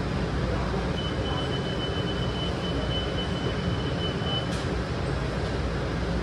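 Steady low rumble and hiss inside a WMATA 7000-series Metro railcar at a station stop. A thin high whine comes in about a second in and cuts off with a click after about four and a half seconds.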